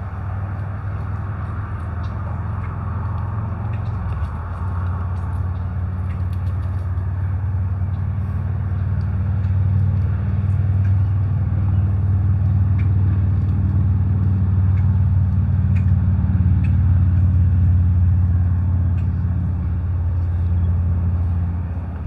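Steady low engine-like rumble, swelling louder through the middle, with a few faint short high ticks over it.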